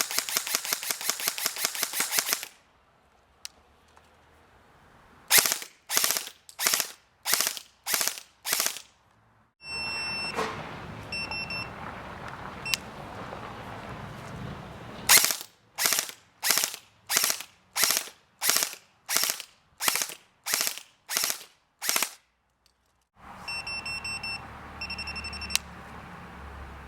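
Classic Army ECS KM10 airsoft electric gun firing: a short rapid full-auto burst at the start, then strings of single shots about two a second, with pauses between the strings.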